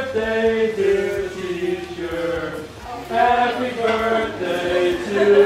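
Background music: a man's voice singing long held notes in a slow, chant-like melody, stepping from one pitch to the next.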